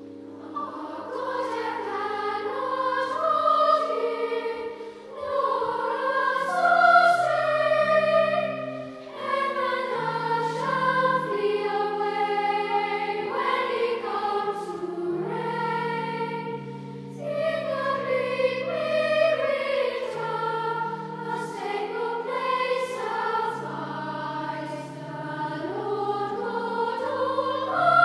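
Children's choir singing a carol over held low accompaniment notes that change chord by chord.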